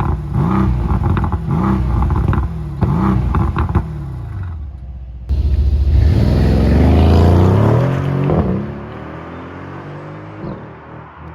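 Mercedes-AMG GLC 63 S's 4.0-litre twin-turbo V8 blipped through several quick revs, with crackles from the exhaust between them, before settling down. After an abrupt cut the same V8 pulls hard under acceleration, its pitch rising for a couple of seconds, then drops away as the throttle comes off.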